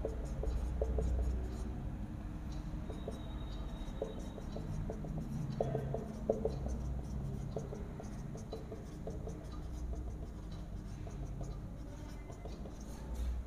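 Marker pen writing on a whiteboard: a run of short, irregular rubbing strokes as letters are written, over a low steady hum.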